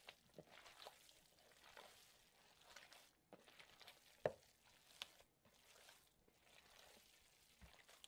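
Faint wet squishing of bare hands kneading ground venison mixed with an ice-water jerky cure and seasoning in a plastic bowl. Two sharper soft knocks come about four and five seconds in.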